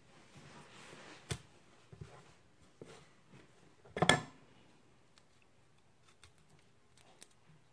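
Sparse knocks of a knife and onion on a cutting board: a sharp click about a second in, a louder knock about four seconds in, and faint small ticks between.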